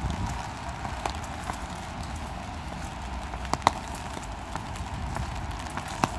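Footsteps walking on wet paving stones over a steady low rumble of street noise, with a sharp click about three and a half seconds in.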